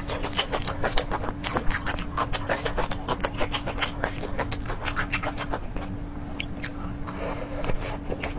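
Close-miked chewing: a steady run of short, wet mouth clicks and smacks, several a second, over a faint steady hum.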